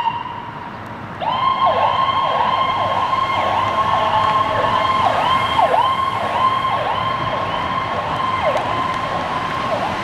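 Ambulance's Federal Signal PowerCall electronic siren. A falling tone ends, and about a second in the hiccup tone starts: a steady high tone broken by quick downward dips, several a second at first, then further apart.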